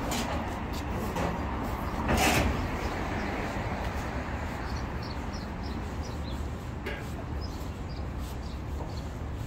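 City street ambience: a steady low traffic rumble, with one brief loud whoosh of noise about two seconds in and a few faint high chirps later.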